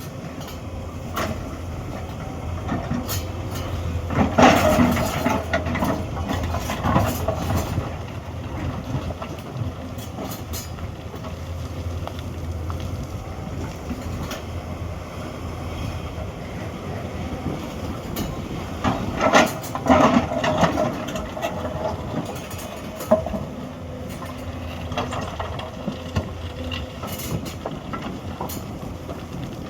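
Hyundai 210 excavator's diesel engine running steadily under load. There are louder bursts of metallic clanking and scraping from the bucket and arm, about four seconds in and again around nineteen seconds in, with scattered sharp knocks between.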